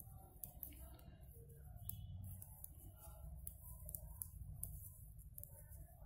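Faint, irregular clicks and taps of metal knitting needles working a plain knit row of wool, over a low steady hum.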